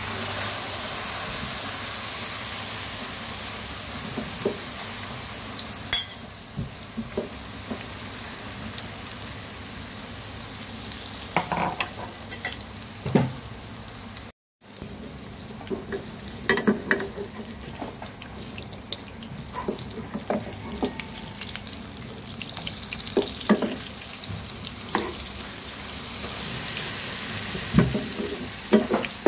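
Hot oil sizzling loudly as chopped cha-om (climbing wattle) shoots and then a cha-om egg omelette deep-fry in a pan. The sizzle jumps up at the start as the greens hit the oil. Scattered knocks and scrapes of a spatula against the pan run through it, and it cuts out briefly about halfway through.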